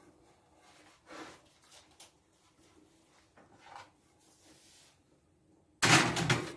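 Faint handling noises, then near the end a sudden loud scrape as a metal baking tray carrying a foil pan is slid onto the wire rack of an open oven.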